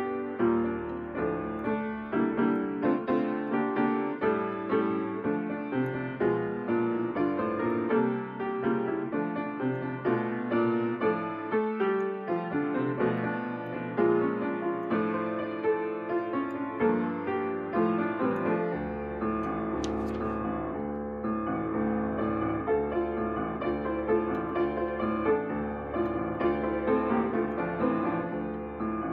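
Solo piano played on the keys: a continuous run of chords and melody notes.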